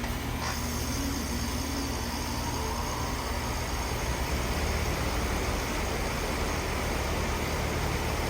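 Heil N4H4 two-ton heat pump's outdoor unit starting in cooling mode: its Copeland scroll compressor and condenser fan come on about half a second in, with a rising whine over the next couple of seconds as they reach speed, then settle into steady running.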